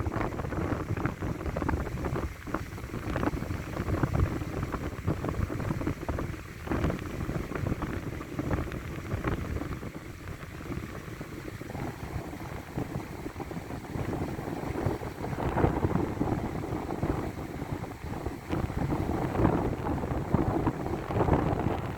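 Wind buffeting the microphone: a rumbling, gusting noise that rises and falls every few seconds.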